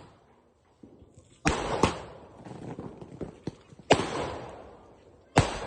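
Multi-shot sky-shot fireworks cake firing: loud sharp bangs at uneven gaps of about half a second to two seconds, each trailing off with an echo.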